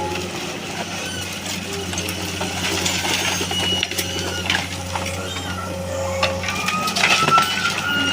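Excavator's diesel engine running steadily at a low, even hum, with short high squeaks and clicks scattered over it.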